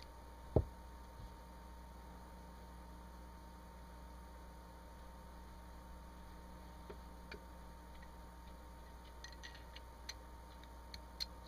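Small metal parts of a Smith & Wesson M&P15 Sport's bolt carrier group giving faint clicks and taps as the bolt is fitted back into the carrier during reassembly. There is a single dull thump about half a second in, and a steady low hum underneath.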